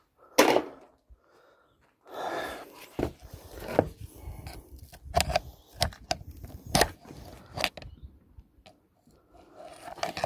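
Scattered short metallic clinks and knocks of hand tools and a vacuum cleaner motor being handled on a workbench, with a scraping rustle about two seconds in.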